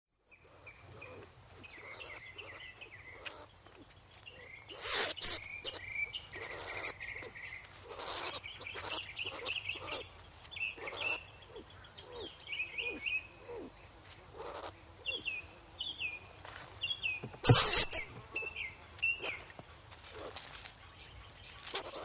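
Animal calls: many quick, high chirps and squeaks with short slides, broken by a few loud, short hissing bursts, the loudest about three-quarters of the way through.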